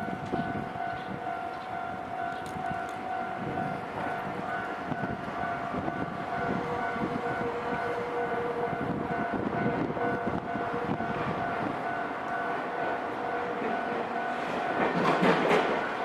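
Railway level-crossing warning bell ringing a steady, rapidly repeating tone. Near the end, an approaching train's noise swells.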